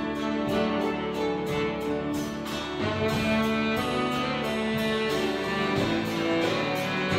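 Small church band playing an instrumental piece: strummed acoustic guitar keeping a steady rhythm under sustained violin and saxophone lines, with piano and bass guitar.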